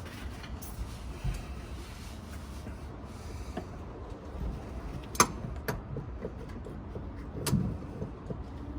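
Hand tools working on a screw in a tight spot: quiet scraping and handling noise with two sharp metallic clicks, about five seconds in and again two seconds later.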